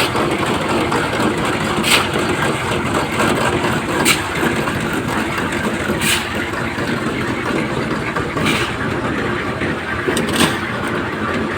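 An engine running steadily, with a sharp metallic-sounding knock about every two seconds.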